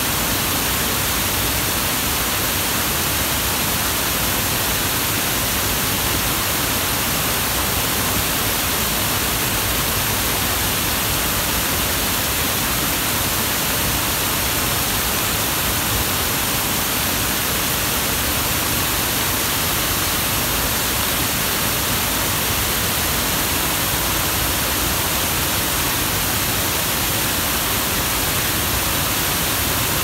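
Waterfall rushing: a steady, unchanging hiss of falling water.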